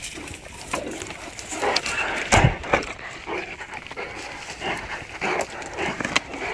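Great Danes snuffling and chewing as they graze on grass, in short irregular noisy bursts, with a single loud thump about two and a half seconds in.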